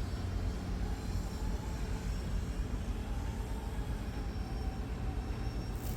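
Delivery drone's propeller hum as it comes in, a faint steady tone over a steady low rumble.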